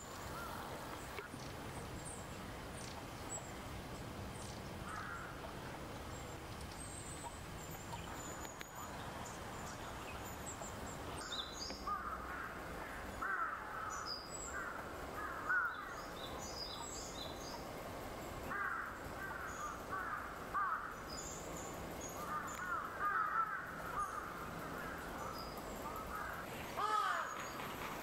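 Wild birds calling over a steady low background rumble. From about eleven seconds in, a bird gives loud calls again and again, mixed with thin, high chirps from small birds.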